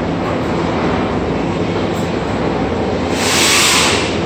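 Electric core drill running steadily. About three seconds in, a loud hiss joins it for about a second.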